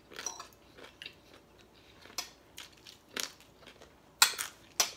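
Eating sounds close to the microphone: chewing and crunching food, with light clinks of spoons and forks on plates and two louder clicks near the end.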